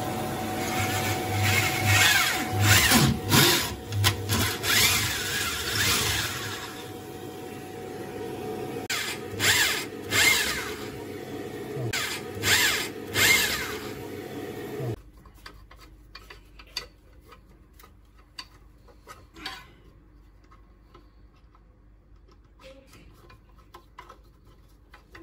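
Electric power drill running and boring into a wall, in repeated surges of load. It cuts off abruptly about fifteen seconds in, leaving only faint clicks and knocks.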